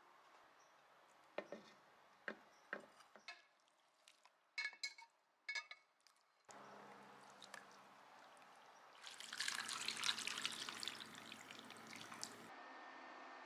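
Pork-spine stew broth bubbling in a pot: scattered small pops and drips, then a louder, crackling stretch of bubbling liquid for a few seconds near the end.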